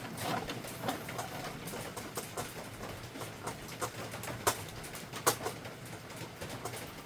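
Scattered clicks and taps of hard plastic parts being handled and seated in an HP OfficeJet Pro 8600 Plus inkjet printer, with two sharper snaps about halfway through, as the printhead goes back in.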